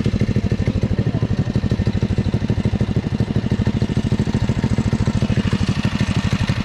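Cyclekart's small single-cylinder engine idling, a steady, even putter.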